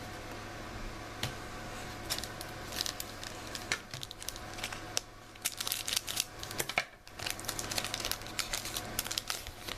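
A trading card pack's wrapper being torn open and crinkled by hand, with irregular crackling and rustling throughout.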